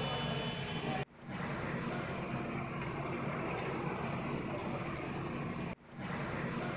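Induction hardening of a steel stub axle: the induction heater's high-pitched whine over machine noise cuts off suddenly about a second in, and a steady hiss of quench water spraying onto the red-hot steel follows, throwing up steam. The sound drops out briefly once more near the end.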